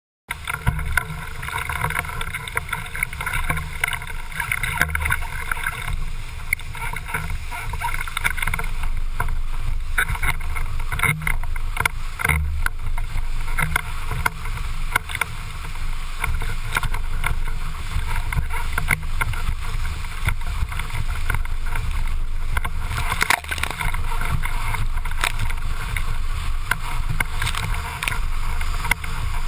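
Slalom windsurf board planing fast over choppy water: a steady rush of water and wind, broken by frequent short slaps of the board on the chop. It cuts in abruptly just after the start.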